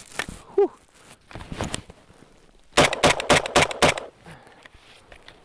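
Galil rifle, taken from the cold for a freezing function test, firing a rapid string of about eight shots in just over a second. A few quieter clicks and knocks of the rifle being handled come before the shots.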